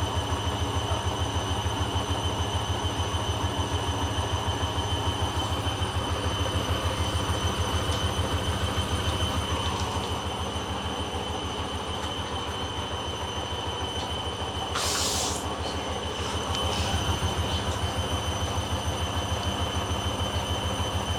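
Hoover Dynamic washing machine on the final spin of a wool and silk cycle, its motor whining at a steady pitch while the drum turns with a low rhythmic thumping from a pillow load that has gone unbalanced. A brief rush of hiss comes about three quarters of the way through.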